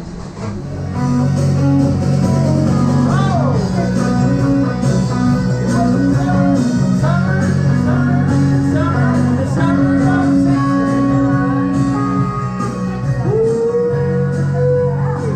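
Background music with guitar, a steady bass line and a singing voice, rising in loudness about a second in.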